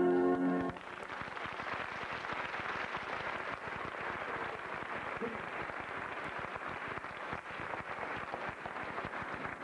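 A held chord from the ballet music cuts off less than a second in, and audience applause follows, a steady crackle of many hands clapping.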